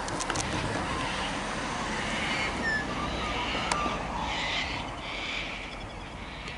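A car drives past, a low road rumble that eases off over the first few seconds, with birds calling.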